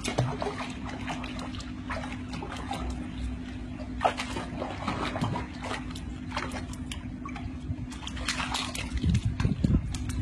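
Pool water splashing and sloshing as a dog wades in the shallow edge of a swimming pool, with irregular small splashes over a steady low hum.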